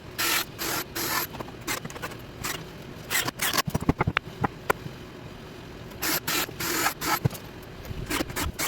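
Hand work on a wooden firework rack: repeated short scraping and rubbing strokes, with a run of sharp clicks and small ringing knocks in the middle.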